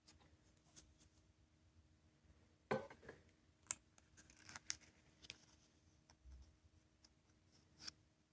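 Faint, scattered clicks and short scrapes of small hard objects being handled, the loudest about three seconds in; near silence between them.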